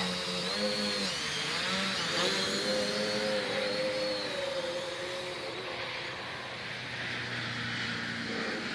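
Quadcopter's electric motors and propellers whining in flight, the pitch wavering up and down as the motors change speed. It grows slightly fainter as the quad flies away.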